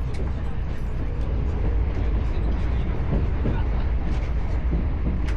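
Steady low rumble inside a passenger train car, with faint clicks and rattles over it.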